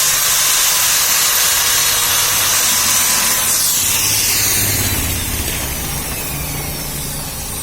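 Oxy-acetylene torch flame hissing steadily, then fading about four seconds in, while a low hum grows underneath.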